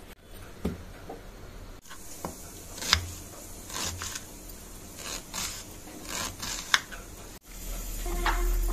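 A series of short, sharp, irregular cutting or scraping strokes, about a dozen, spaced unevenly.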